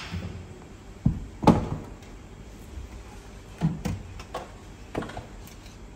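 Several irregular knocks and clunks from things being handled in a kitchen, about six in all, the loudest about a second and a half in and a cluster of lighter ones a little after the midpoint.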